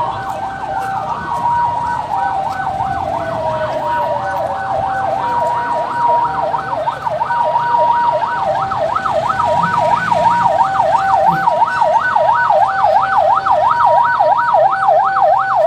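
Several patrol-vehicle sirens sounding at once. One is a fast yelp sweeping up and down about four times a second, another is a two-tone hi-lo alternating about once a second, and a third winds down in pitch over the first several seconds. A low engine hum runs underneath.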